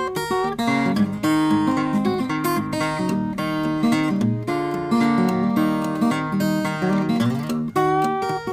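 Steel-string acoustic guitar played fingerstyle in the Travis-picking manner: a steady alternating bass with melody notes picked over it.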